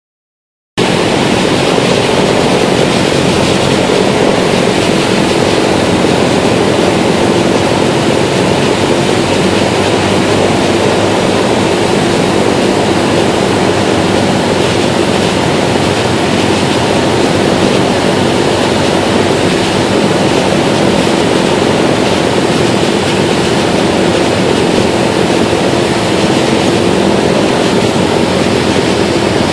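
Cockpit noise of a single-engine propeller plane in flight on approach to a runway: the piston engine and propeller running steadily, mixed with rushing airflow. It starts abruptly about a second in and holds level throughout.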